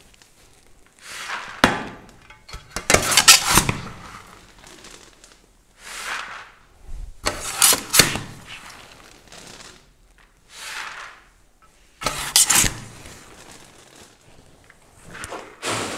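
A steel spade scooping sprouted barley green malt off a metal tray and tipping it into a plastic bucket: a rush of sliding, pouring grain every couple of seconds, with sharp knocks of the blade against the tray.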